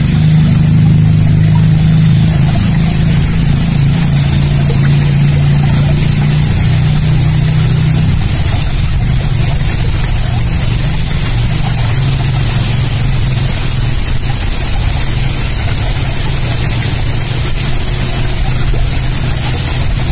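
A motor running steadily with an even hum, dropping a little in pitch about eight seconds in.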